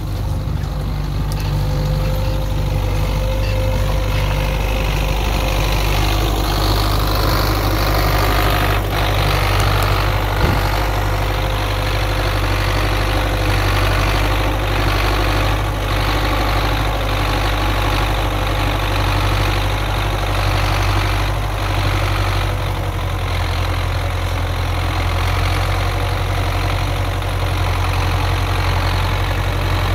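Belarus 820 tractor's four-cylinder diesel engine running steadily as it slowly pulls a heavily loaded cassava trailer. There is one short knock about ten seconds in.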